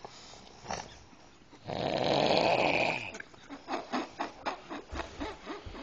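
A man snoring in his sleep: one long, loud snore about two seconds in, then a run of quick short clicks.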